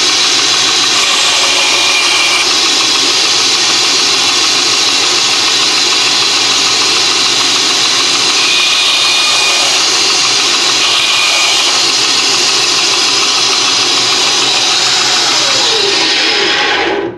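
Ingco bench bandsaw running loud and steady while small wood blocks are cut. The noise carries the loud sound of the blade-guide roller bearings that the owner put on in his modification. It stops abruptly near the end.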